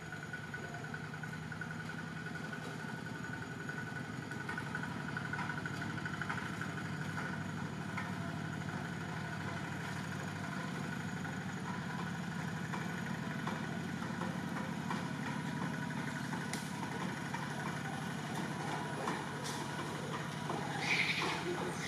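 An engine running steadily with a low hum. Near the end there is a short, louder, higher-pitched sound.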